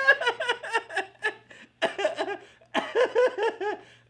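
Person laughing hard in several breathless bouts with short pauses between them.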